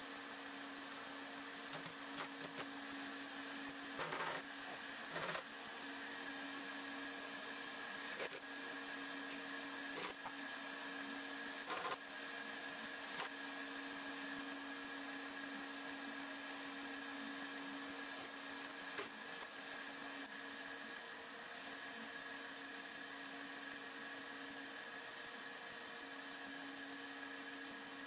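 A steady machine hum with two constant tones. Several short knocks and clicks come in the first half.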